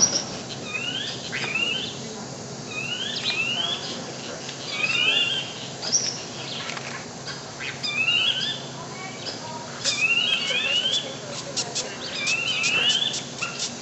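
A bird calling over and over, a pair of short rising whistled notes every second or two, with a few sharp clicks near the end.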